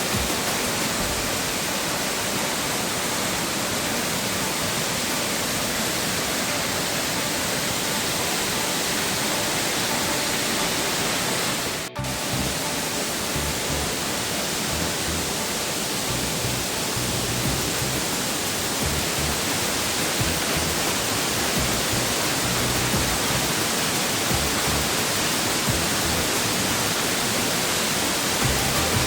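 Large waterfall plunging into a deep cave pit, a steady, dense rush of falling water, swollen by a night of heavy rain. The sound drops out for an instant about twelve seconds in.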